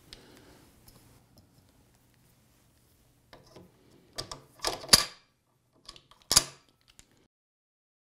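A few short metal clicks and clacks from steel hose-crimper parts being handled and set down, the loudest two about five and six and a half seconds in, with near silence between them and after.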